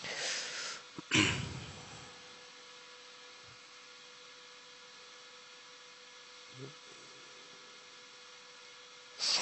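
Steady electrical hum on the recording, holding two steady pitches. A few short bursts of noise cut through it: the loudest about a second in, smaller ones in the middle, and another near the end.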